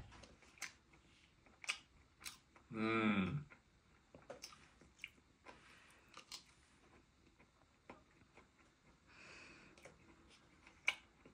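A person eating kimchi fried rice with a plastic spoon from a paper cup: scattered small clicks and mouth noises of spoon and chewing, with a brief hum from the eater about three seconds in.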